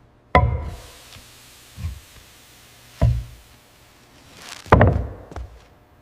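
Sawn lumber knocking and thudding as it is handled: about five irregular heavy knocks, each ringing briefly, the loudest a little before the end.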